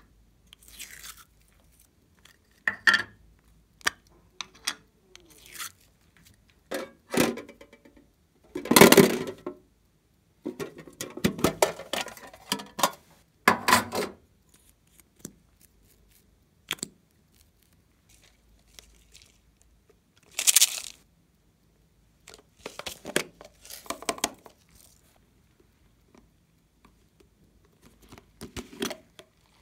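Close handling of small plastic cosmetic containers: scattered clicks and short scraping, rustling sounds as an eyeshadow compact, a nail-polish bottle and a container of foam beads are opened and emptied onto slime, with a few louder bursts among quieter taps.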